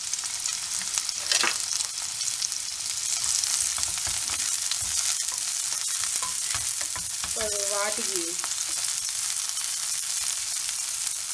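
Diced red capsicum sizzling steadily in hot oil in a non-stick frying pan, stirred with a wooden spatula.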